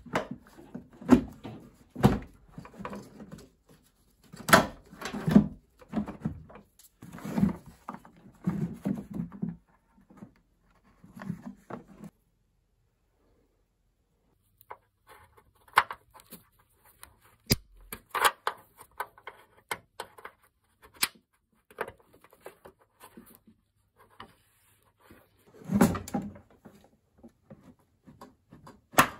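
Plastic car parts being handled and fitted by hand: a run of irregular plastic knocks, clicks and rubbing as a windshield washer reservoir and plastic retaining clips go into place. The sound pauses for about two seconds near the middle, and there is a heavier bump near the end.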